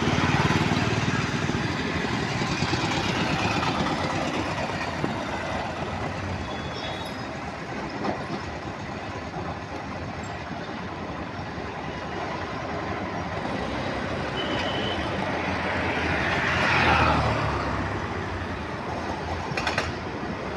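Road traffic noise: vehicle engines running, with one vehicle passing louder about three-quarters of the way through.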